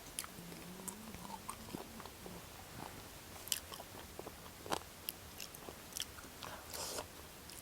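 Close mouth sounds of eating fried chicken legs with rice: chewing and biting, heard as a scatter of small wet clicks and smacks.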